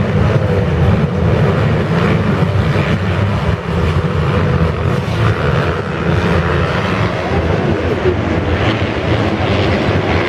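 A pack of motocross bikes racing together, many engines running hard at once in a loud, steady, unbroken din.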